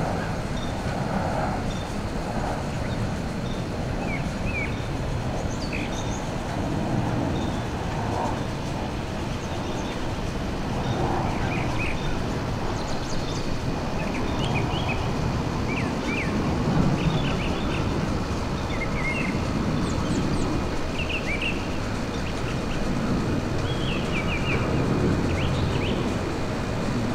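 Steady low rumble of a FedEx Boeing 767 freighter's jet engines as it passes overhead on approach, swelling and easing slowly. Small birds chirp now and then over it.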